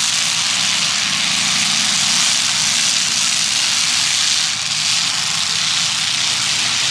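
Engines of demolition derby cars running together, a steady loud mechanical din with a heavy hiss over a low engine rumble.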